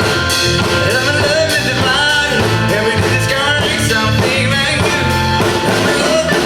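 Live pop band playing a song, with a singing voice over electric guitar, bass and drums.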